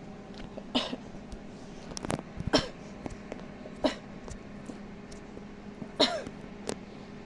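Several short coughs, about four, over the steady hum of a running microwave oven, with a few sharp clicks between them.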